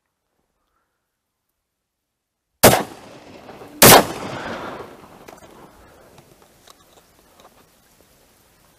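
Double-barrelled shotgun fired twice in quick succession, the shots about a second and a quarter apart, at thrushes in flight. Each shot is followed by a rolling echo that dies away over several seconds.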